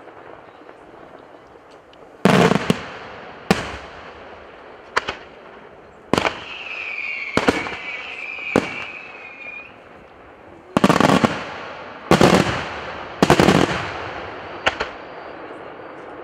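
Aerial firework shells bursting in a rapid series of about ten sharp bangs, some drawn out into longer, denser blasts. A wavering whistle sounds from about six to nine and a half seconds in.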